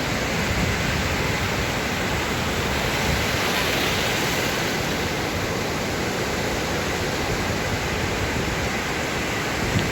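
Sea waves washing on the shore in a steady, unbroken rush of surf.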